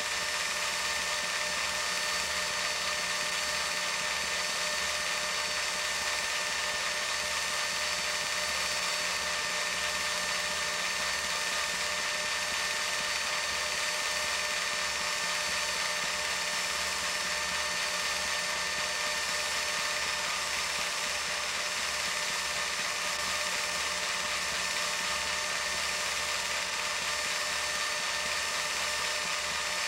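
8mm film projector running: a steady mechanical whir and fast clatter from the film transport, with steady high tones over a hiss.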